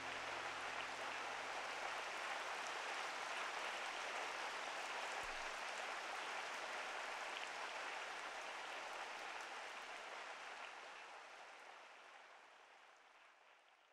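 Rain sound effect ending the song: an even hiss of falling rain that fades out over the last few seconds. The song's final held chord dies away just at the start.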